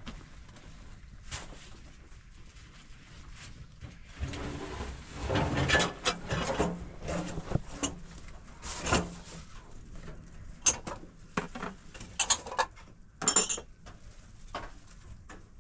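Rustling and knocking of people moving about and handling things, with a few sharp high clinks in the second half.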